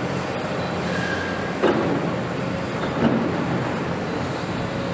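Heavy diesel construction machinery running steadily, with two sharp knocks about a second and a half apart.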